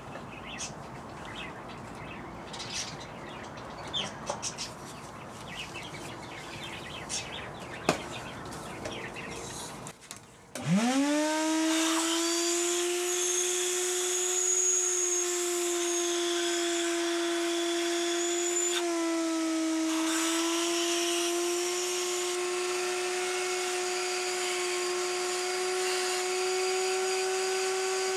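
Birds chirping outdoors with a few small handling clicks. About ten seconds in, a shop vacuum motor starts, spins up quickly and settles into a steady hum while its hose clears metal shavings from a freshly tapped air injection port in an aluminium cylinder head. Its pitch sags briefly near the middle.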